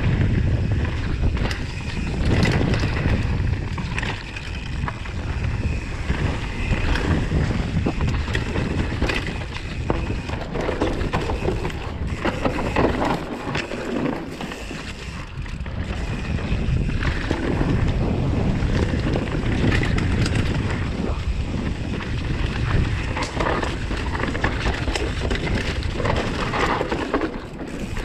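Wind buffeting an action camera's microphone as a mountain bike rides a dirt trail, with tyre noise and frequent clicks and rattles from the bike over the rough ground.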